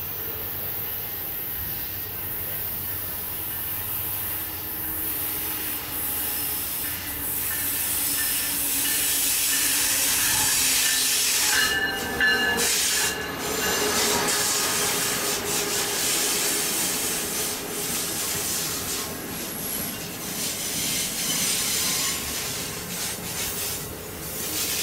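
Amtrak diesel passenger train passing close by on a curve: the locomotive's engine grows louder as it nears, then the coaches roll past with wheels and rails rubbing and a brief high wheel squeal about twelve seconds in.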